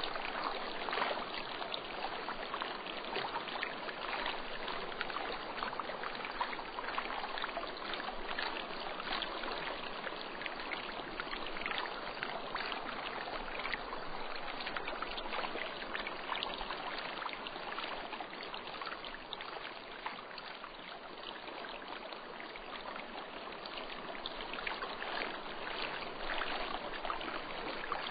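Steady rushing of a flowing stream or river, with a dense patter of small splashes and trickles.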